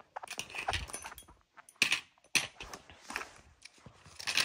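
Small metal grooming tools and a pen being picked up and dropped into a fabric zip pouch: irregular sharp clicks and taps with light rustling, the sharpest two about two seconds in.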